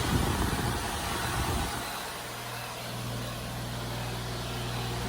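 Heat pump outdoor unit running in heat mode: a steady low compressor hum under the whir of the fan, the hum getting stronger about two seconds in. The owner calls the compressor very angry.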